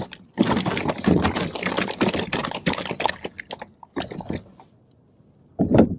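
A halibut being handled and threaded onto a fish stringer through its gills: a quick run of irregular clicks, scrapes and slaps that dies away after about four seconds, then one short louder burst near the end.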